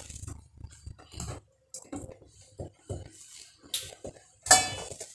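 Kitchen utensils and dishes clinking and knocking while porridge is served, with a louder ringing clink about four and a half seconds in.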